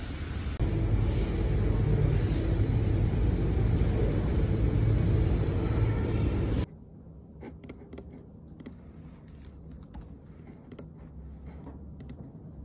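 Steady low rumble of a moving vehicle heard from inside. After about six and a half seconds it cuts off abruptly to quiet, irregular clicking of typing on a computer keyboard.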